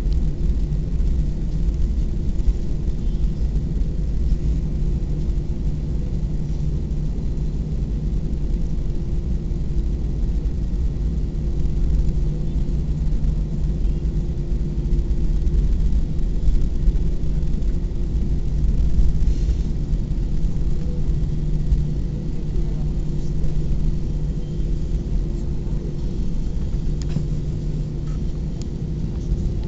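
Airbus A320 cabin noise while taxiing after landing: a steady low rumble with an even hum from the engines at idle.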